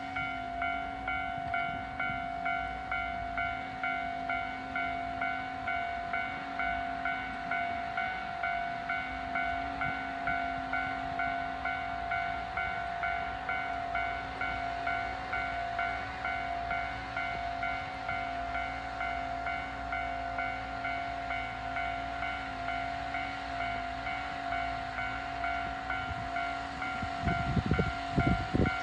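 Railway level-crossing warning bell starting suddenly and ringing on in a fast, even rhythm, the signal that a train is approaching. Near the end a few louder low rumbles come in.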